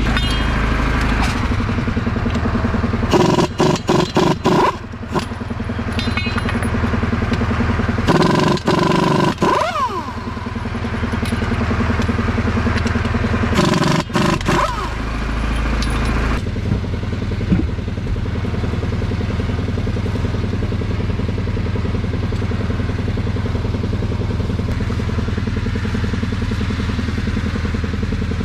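Pneumatic impact wrench rattling the lug nuts off a large wagon wheel rim, in bursts about 3, 8 and 14 seconds in, over an engine running steadily throughout.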